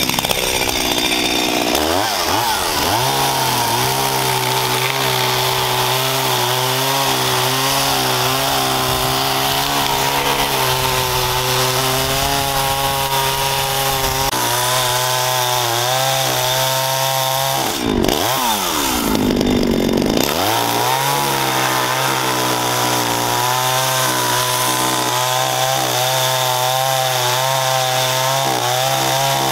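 Gasoline chainsaw revving up and then running at high speed as it cuts into a thick wood slab. About two-thirds of the way through, the engine speed drops and climbs back up before settling steady again.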